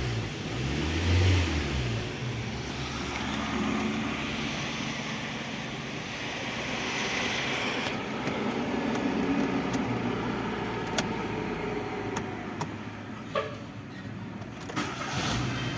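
A 1.2 16V engine running, with a humming noise that swells and fades by turns. The mechanic suspects the water pump, and says the noise comes and goes before turning continuous once the engine is hot.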